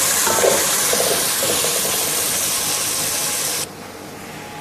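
Tomato-onion masala with fresh mint and coriander leaves sizzling in hot oil in an aluminium pot, a metal ladle scraping the pot as it is stirred early on. The sizzle drops off suddenly about three and a half seconds in.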